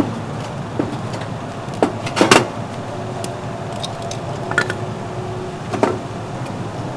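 Small fire burning in a box-shaped fire pit with a steady low rumble, and a few sharp knocks and clicks as it is tended with tongs, the loudest cluster about two seconds in.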